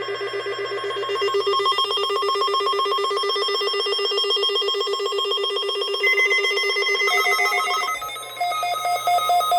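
Electronic alarm tone warbling rapidly, like a telephone ring, then switching about eight seconds in to a different, slower and higher beeping pattern.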